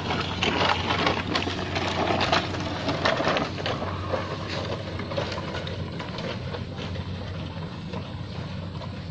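A carabao dragging a wooden sled over a concrete road: the wooden runners scrape and knock, with hoof steps. The sound grows fainter as the sled moves away.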